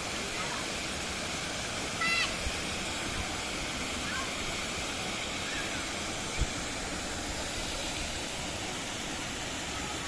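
Steady rushing of a waterfall and the stream below it over rocks. A few short, high distant calls sound about two and four seconds in, and there is a soft thump a little past the middle.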